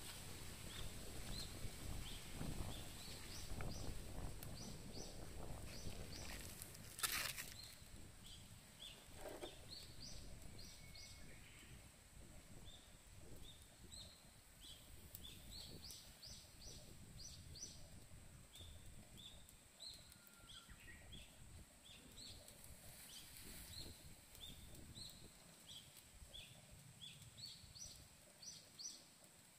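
Small birds calling in short, high chirps repeated over and over against quiet outdoor background, with one sharp click about seven seconds in.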